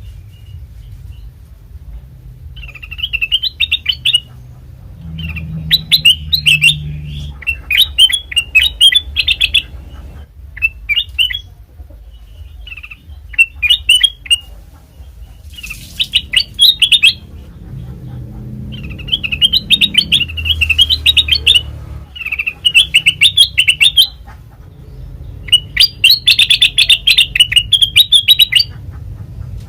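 Kutilang emas, a bulbul, singing in repeated bouts of quick, bright chirping notes, each phrase about one to two seconds long with short pauses between. A steady low hum runs beneath.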